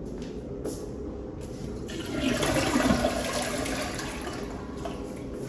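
Toilet flushing: a rush of water swells about two seconds in, is loudest for about a second, then dies away.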